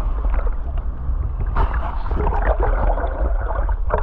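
Muffled water noise and gurgling around a free diver's camera in the sea, over a steady low rumble, with a sudden louder rush of noise about one and a half seconds in.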